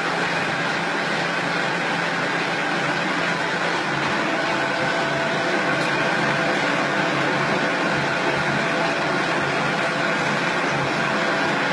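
Plastic-processing machine with a feed hopper running steadily as scrap plastic is fed into it, giving a constant mechanical hum with a steady whine on top.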